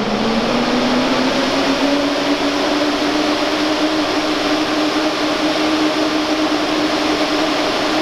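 Vents OV 2E 250 single-phase axial wall exhaust fan finishing its spin-up after switch-on: its hum rises in pitch over the first two seconds, then holds steady at full speed over a constant rush of moving air.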